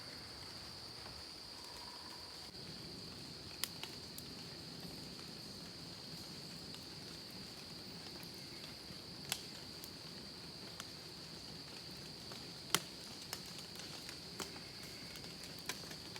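Steady chorus of crickets, one continuous high-pitched trill, with a few faint sharp clicks now and then.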